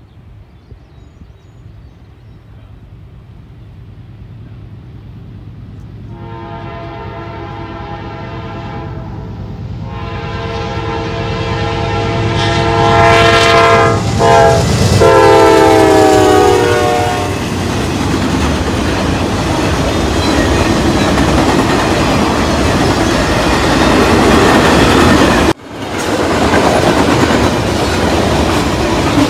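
Norfolk Southern freight train approaching and passing a grade crossing. The diesel rumble builds, then the lead locomotive's multi-chime air horn blows the crossing signal, long, long, short, long, its pitch dropping on the last blast as the engines go by. Then comes the loud steady rumble and clatter of tank cars rolling past.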